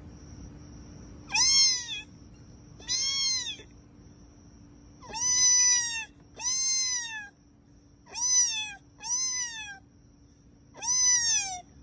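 Seven meows in a row, each a single call that rises then falls in pitch and lasts under a second, with short gaps between. A faint steady high whine and a low hum run beneath.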